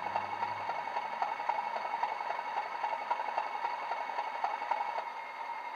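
A DCC sound decoder in a Bachmann Class 37 model plays the diesel's idle through the model's small built-in speaker. A low rumble stops about half a second in, leaving a steady whistling tone with light crackling that thins out near the end.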